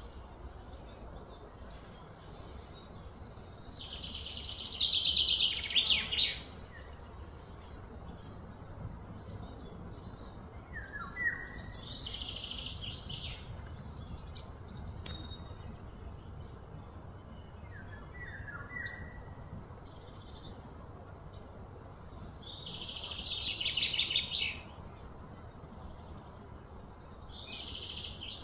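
Repeated high, rapid trilling calls, each swelling in loudness over a couple of seconds and then stopping abruptly, heard four times. A few short chirps come in between, over a low steady hum.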